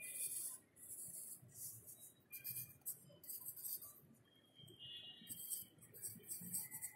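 Pencil scratching across notebook paper while writing, in short strokes of hiss with brief pauses between them.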